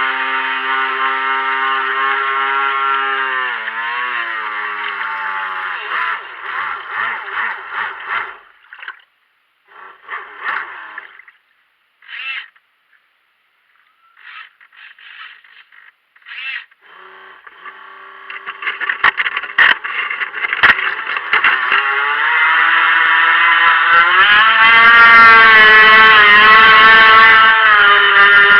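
Brushed electric motor of an RC boat whining at speed, its pitch dropping as the throttle is eased a few seconds in. It then gives short throttle blips with gaps of near silence through the middle, and climbs back to full throttle over the last part, with water hiss joining as the boat planes.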